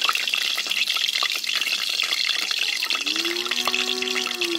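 Mustard oil heating in an iron karahi over the fire, a steady sizzling hiss with small crackles as it comes up to frying heat. A short low hum joins in about three seconds in.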